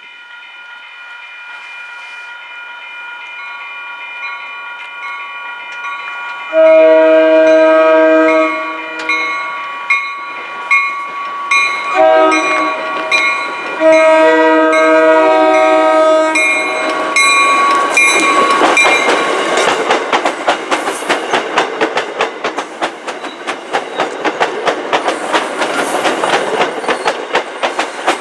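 MBTA commuter train sounding its horn in a series of long and short blasts as it approaches a grade crossing, over a steady ringing from the crossing signal. The bilevel coaches then pass close by, with wheel noise and a rapid clickety-clack over the rail joints.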